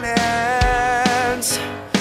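Background music: a song with a long held note over drum hits.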